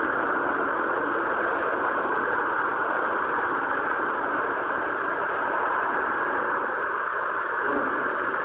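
Tow truck's engine idling, a steady noisy drone that does not change.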